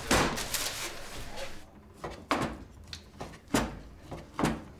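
Kitchen work clatter: several sharp knocks and clinks of utensils and dishes handled at a counter, irregularly spaced about a second apart.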